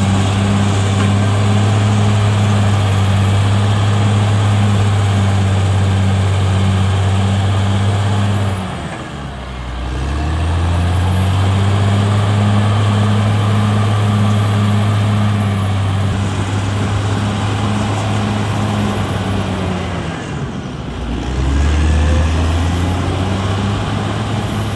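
Caterpillar D6R XL bulldozer's diesel engine running steadily at high revs. Its pitch and level dip sharply twice, about nine seconds in and again about twenty seconds in, then climb back each time. A faint high whine runs with the engine and drops out at each dip.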